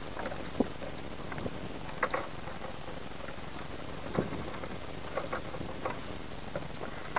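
Wind rushing over a model yacht's deck, with irregular sharp clicks and taps from the Hurricane 1000 RC yacht's rigging, blocks and sail knocking in the gusts.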